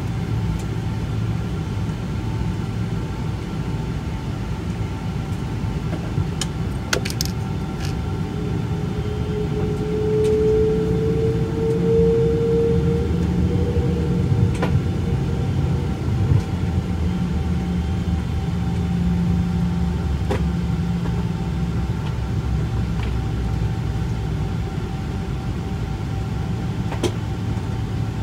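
Cabin noise of a Boeing 777-200 taxiing: a steady low rumble from the engines at taxi power, with a faint tone that rises and fades partway through. There are a few sharp clicks about seven seconds in and near the end.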